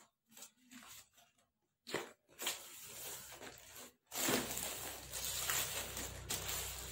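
Rustling and scraping of a rolled foam camping mat being unrolled by hand. It is faint at first and becomes louder and steady from about four seconds in.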